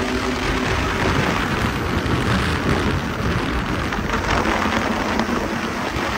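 BMW S1000RR sport bike's inline-four engine and exhaust running at speed, heard as a loud, steady rushing noise.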